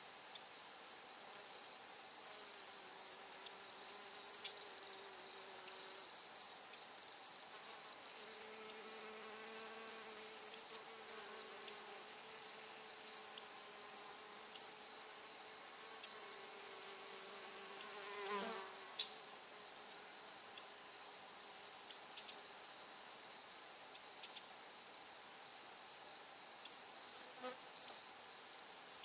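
A steady, high-pitched chorus of crickets chirring in a field. A fainter, wavering lower buzz comes and goes in the middle.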